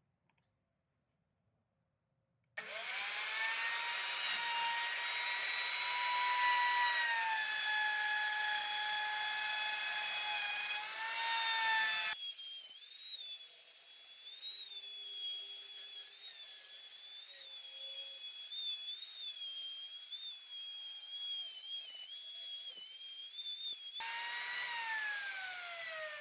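An electric woodworking power tool's motor starts about two and a half seconds in with a high whine, its pitch sagging a little as it cuts wood. About halfway through the sound abruptly changes to a higher, wavering whine, and near the end the pitch falls steadily as the motor winds down.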